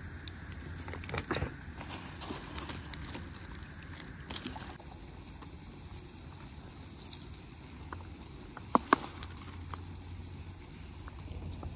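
Light clicks and taps of a plastic food container and vegetables being handled, over a steady low outdoor rumble, with a sharper double knock about three-quarters of the way through.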